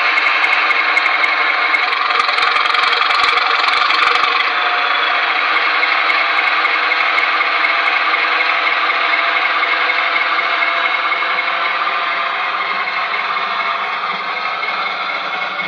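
Heljan model diesel locomotive's DCC sound decoder playing a diesel engine sound through the model's speaker, a steady engine note with a rasping edge as the locomotive moves off along the track. A few sharp clicks come in the first few seconds, and the sound slowly fades near the end as the model draws away.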